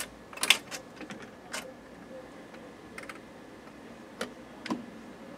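Scattered clicks and knocks from the Perpetuum Ebner 99V record changer's tonearm and changer mechanism as the arm is moved to the end of the record and returns to its rest, the loudest click about half a second in.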